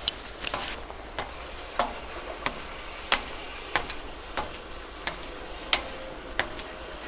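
Footsteps of a person walking at a steady pace on hard ground, about three sharp steps every two seconds.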